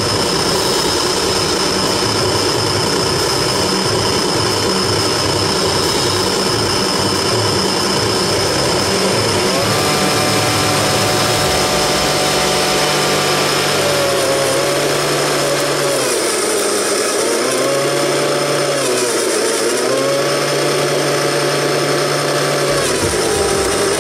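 Homemade RC tractor's rear-mounted snow blower running with a steady whine. From about ten seconds in, the motor's pitch dips and recovers several times, typical of the blower loading up as it bites into snow and throws it out the chute.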